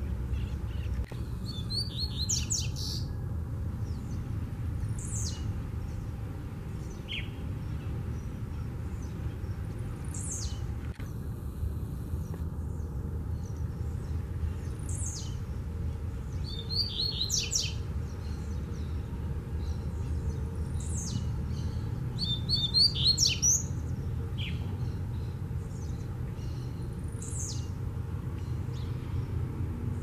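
Blue-black grassquit (tiziu) singing: a short, high note that sweeps downward, repeated every few seconds, with a few longer, busier chirping phrases in between.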